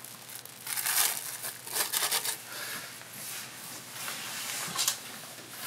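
Plastic cling film crinkling in several short rustles as it is peeled back off the surface of urushi lacquer in a pot.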